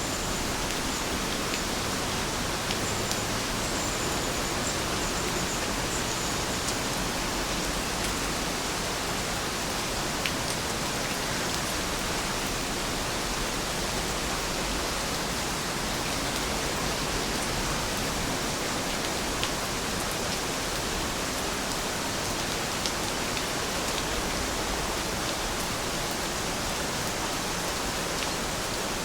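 Steady rain falling, an even hiss with a few sharper ticks of single drops.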